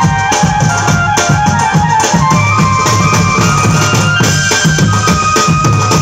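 Live band music, loud through the stage speakers: several drummers playing a busy rhythm on timbales and drums under a sustained keyboard melody line that steps from note to note.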